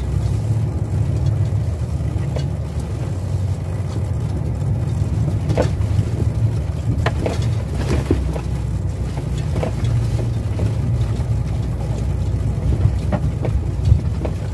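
Heavy truck's diesel engine running with a steady low rumble, with scattered light rattles and knocks.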